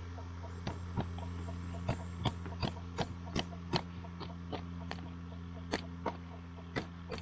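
A steady low motor hum, with irregular sharp clicks and taps over it, at about two or three a second in the middle.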